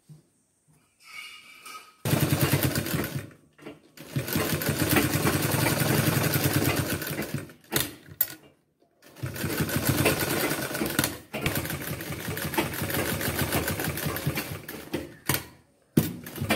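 Straight-stitch sewing machine running in several bursts of rapid needle strokes, stopping briefly between them, as it sews a pocket edge on white cotton fabric.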